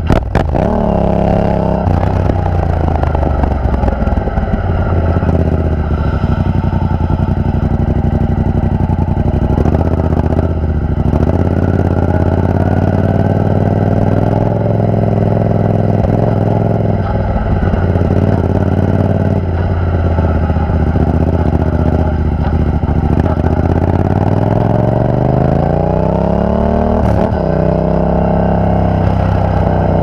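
Yamaha FZ-07's 689 cc parallel-twin engine running through a Ransoto aftermarket slip-on exhaust, heard right beside the carbon muffler while the bike is ridden. The engine note holds steady for long stretches, with a few short breaks at gear changes; about three-quarters of the way through, the pitch climbs as the bike accelerates, then drops at a shift.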